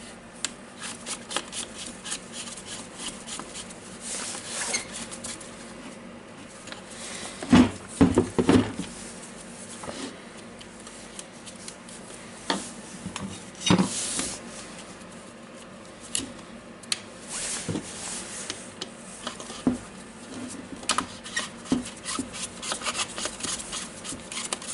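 Small clicks, scrapes and clatter of hand work on a Makita GA9050 angle grinder as new carbon brushes are pushed into its brush holders and the brush caps are fitted. A few louder knocks come about 8 and 14 seconds in.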